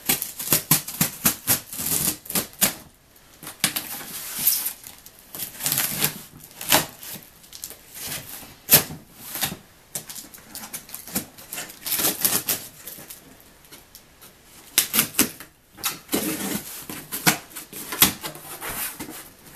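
Cardboard shipping box being opened and handled by hand: irregular rustling, scraping and sharp clicks and taps of cardboard.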